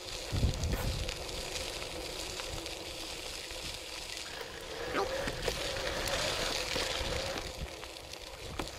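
Mountain bike rolling along a dirt and gravel trail: a steady rushing noise from the tyres on the ground and air moving past, with small ticks and knocks from the bike.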